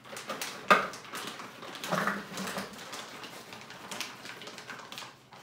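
Kitchen handling noises: a sharp knock just under a second in, then rustling and light clattering as ingredients are handled at the food processor.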